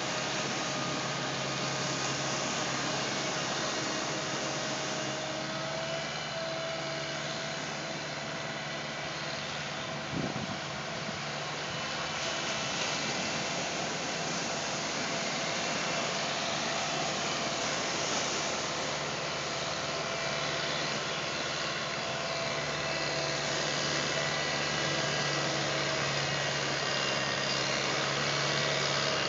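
Engine of a tall three-legged wheeled beach tractor running steadily, a low hum with a higher whine, as it drives out of the surf, over the steady hiss of breaking waves. A single brief knock is heard about ten seconds in.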